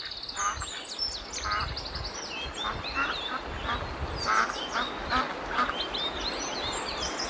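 Ducks quacking in a string of short calls, with small birds chirping higher up and a steady hiss underneath.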